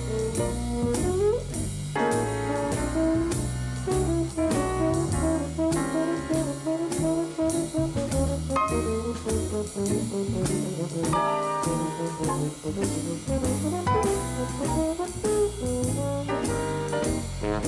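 A jazz ensemble with brass and saxophones playing over string bass and drums, which keep a steady beat.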